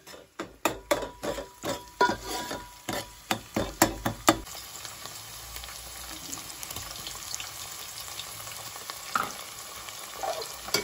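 A metal ladle knocks and scrapes against a metal pot as onions are stirred in hot oil, several strokes a second. After about four seconds the stirring stops and a steady sizzle of onions and tomato frying in oil carries on.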